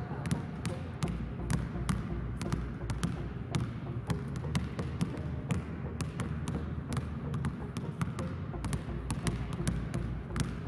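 Two basketballs being dribbled on a hardwood court, their bounces overlapping in a quick, uneven patter of sharp thuds.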